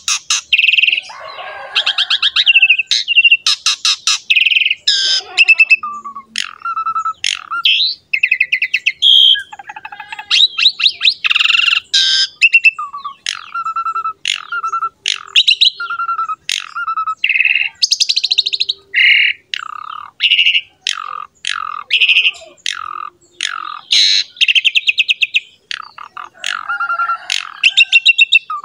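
Pied starling (jalak suren) in full, continuous song. A loud run of varied phrases, fast rattling trills mixed with clear lower whistled notes, with barely a pause between them.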